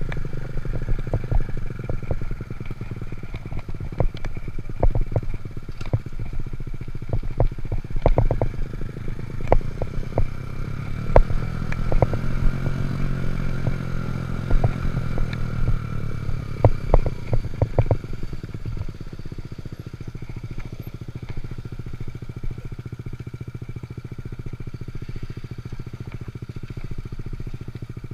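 Honda Monkey Z50 minibike's small single-cylinder four-stroke engine running under way, with repeated clattering knocks from the bike for the first two-thirds. The engine note swells and falls back about halfway through, then runs steadier and quieter near the end.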